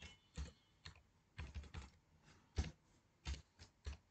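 Faint typing on a computer keyboard: about ten separate key presses at an uneven pace as a password is entered.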